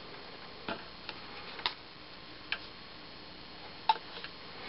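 A few faint, irregular clicks and taps from hands handling a plastic firing-system module and its remote.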